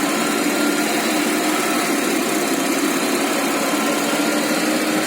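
Car engine running steadily at idle, with no squeak from the suspension arm.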